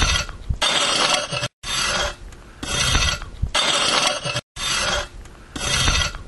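Garden hoe scraping across the top of the soil, weeding: repeated rasping strokes, about one a second.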